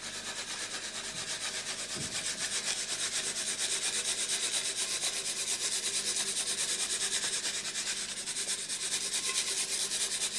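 Protein muesli rattling and rasping inside a canister that is shaken in quick, even strokes to sprinkle it over a pancake.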